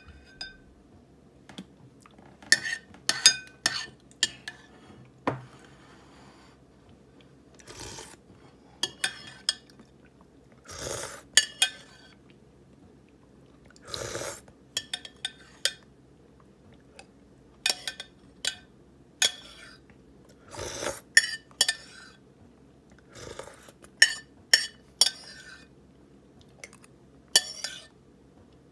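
Metal spoon clinking and scraping against a white ceramic bowl in sharp, irregular strokes, scooping up the last of the frozen soft-persimmon pulp. A few longer, noisier sounds come in between the clinks.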